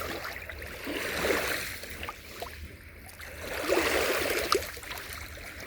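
Small sea waves washing in, with two swells about two and a half seconds apart and a crackling, gurgling wash between them.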